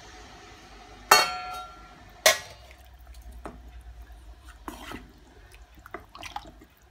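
Metal spoon knocking against a stainless-steel pressure cooker pot while stirring a watery curry: two sharp, ringing clanks about a second apart near the start, then lighter taps and scrapes.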